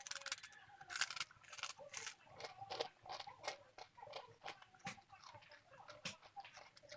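Close-up chewing of crunchy food: irregular crisp crunches and mouth clicks, loudest in the first two seconds and then lighter.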